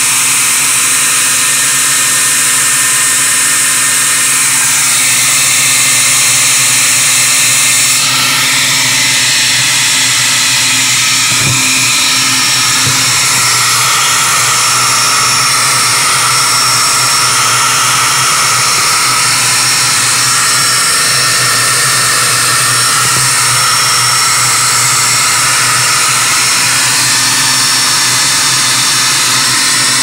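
A loud, steady whir of a small electric motor with a rushing airy hiss, its pitch shifting slightly about a third of the way in.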